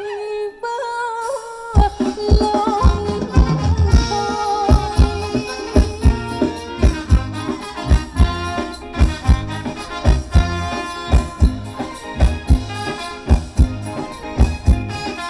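Thai ramwong dance band playing live: a held melody line opens, then about two seconds in the drums and full band come in with a steady dance beat.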